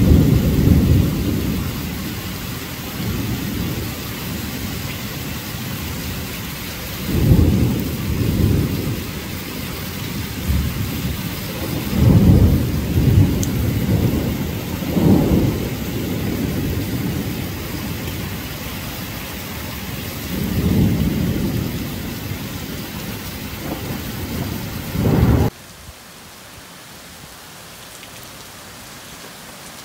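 Heavy torrential rain pouring down as a steady hiss, with low rumbles that swell and fade several times. About 25 seconds in the sound cuts abruptly to a quieter, even rain hiss.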